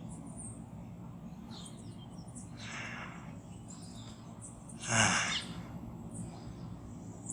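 Birds chirping faintly in short high calls over a steady low outdoor rumble, with a brief loud rushing burst about five seconds in.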